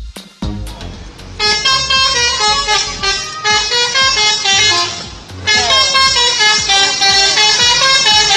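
Indonesian bus 'telolet' musical horn playing a tune of quickly changing notes, in two long runs with a short break between them.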